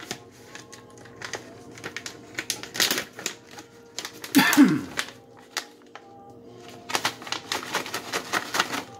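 Plastic snack bag being handled and torn open, a run of sharp crackles and clicks that is busiest about three seconds in and again near the end. About halfway through there is a brief falling hum from a man's voice.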